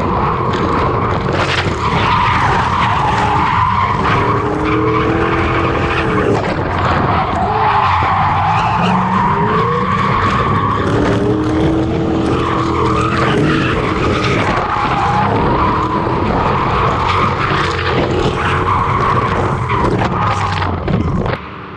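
Ford Mustang drift cars sliding in tandem: engines revving up and down, with tyres squealing and skidding throughout. The sound drops off suddenly near the end.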